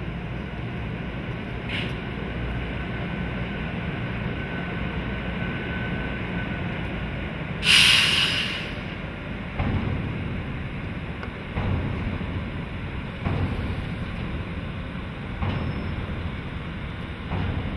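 E.656 electric locomotive rolling slowly, with a steady low rumble. About eight seconds in there is a loud hiss lasting about a second. It is followed by heavy clunks roughly every two seconds as the wheels pass over rail joints.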